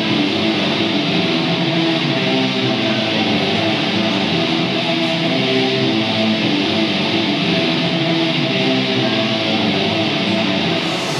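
Rock music led by strummed electric guitar, played as a wrestler's entrance theme.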